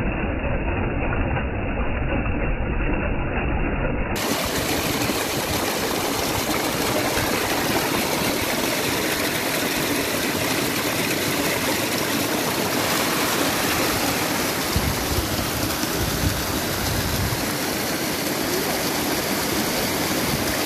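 Small mountain stream rushing and splashing down a steep, rocky cascade: a steady noise of running water. For about the first four seconds it sounds muffled, with a low rumble under it, then it turns clear and bright.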